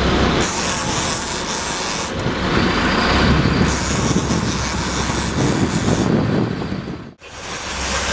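Boat's engine running with wind buffeting the microphone and water rushing in the wake. The sound drops out abruptly for an instant about seven seconds in.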